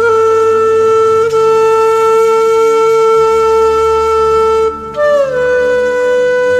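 Background music: a flute-like wind instrument playing long held notes. It breaks off briefly about five seconds in, then comes back on a note that slides a little downward.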